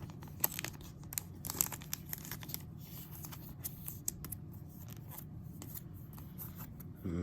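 Sports trading cards and their plastic being handled: a string of short, sharp crinkles, scrapes and clicks, busiest in the first couple of seconds and then sparser.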